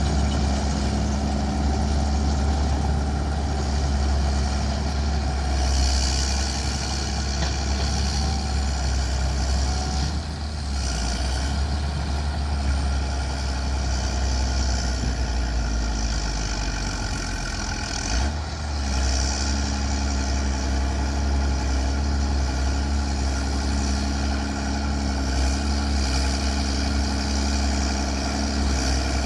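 Bulldozer's heavy diesel engine running steadily, with a brief dip in level about ten seconds in and again just past halfway.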